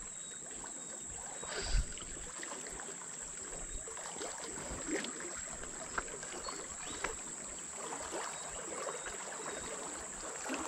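Steady rush of a fast-flowing river, with a few faint knocks scattered through it and a thin steady high tone above.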